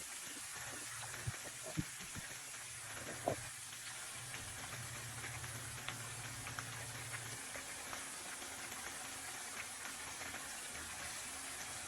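Thin potato slices deep-frying in hot oil: a steady sizzle with a few small pops.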